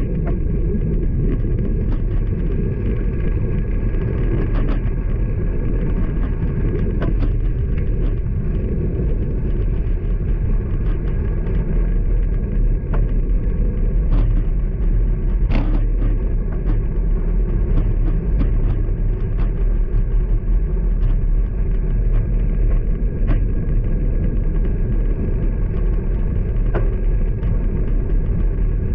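Steady low rumble of wind and road noise, heard while riding a road bike along a road with motor traffic, with scattered sharp clicks and rattles.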